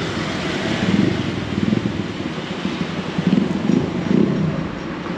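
Street traffic: motor vehicles running past, a continuous rumbling noise that swells and eases.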